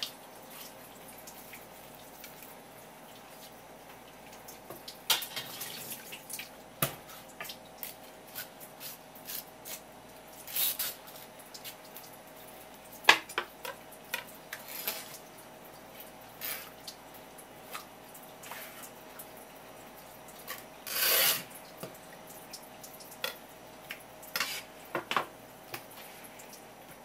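Kitchen knife cutting and scraping through an opened conger eel on a wooden cutting board, with scattered knocks of the blade and wet handling sounds. A sharp knock comes about halfway through, and a longer scrape follows later.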